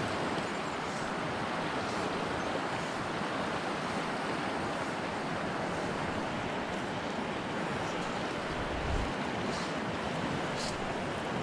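Fast river current rushing steadily over rapids, with a brief low thump about nine seconds in.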